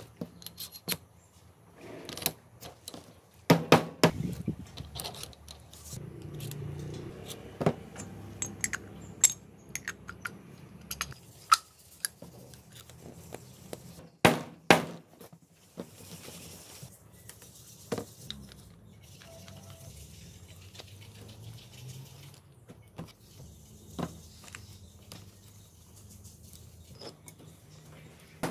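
Steel machine parts clinking and tapping as ball bearings, bushings and a splined shaft are handled, set down and fitted together: scattered sharp metallic clicks, with the loudest clusters about four seconds in and around the middle.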